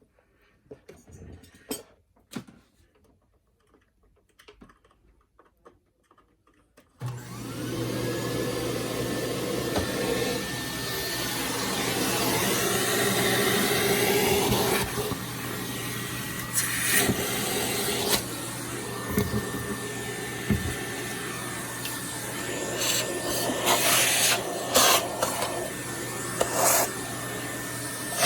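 Bench vacuum cleaner switched on about seven seconds in, after a few quiet handling clicks, and running steadily. Its motor whine rises as it spins up, and short, louder hissing rattles come as it sucks up the cut hair and debris.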